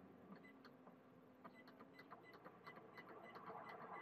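Near silence, with faint quick ticks from the control panel of a roof-mounted evaporative air cooler as it is being adjusted. A faint hiss of its fan and airflow rises near the end as the unit is turned up.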